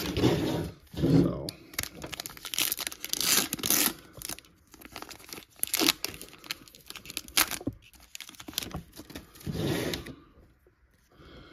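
Trading-card pack wrapper being torn open and crinkled by hand, with the cards slid out and handled; the crackling stops about ten seconds in.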